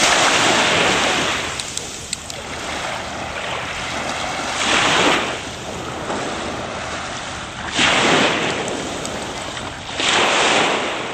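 Waves washing onto a beach, swelling and falling away four times, roughly every three seconds.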